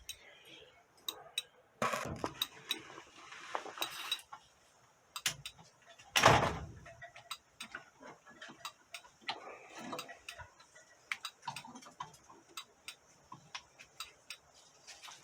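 Irregular small clicks and knocks of hands working the pull-out light switch in an old Ford F350's cab, with a louder rustling bump about six seconds in.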